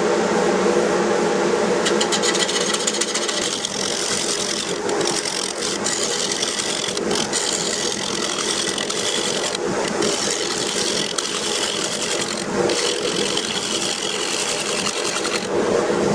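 Wood lathe running with a bowl gouge cutting into a spinning, punky spalted oak blank to rough it round. A steady motor hum runs under a hiss of shavings that starts about two seconds in and breaks off briefly several times as the tool lifts.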